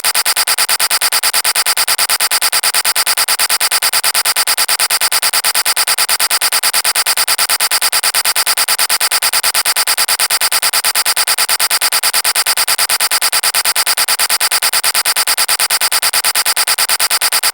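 The 'vine boom' meme sound effect repeated in rapid succession, many hits a second in an even stream, sounding thin and harsh with little low end.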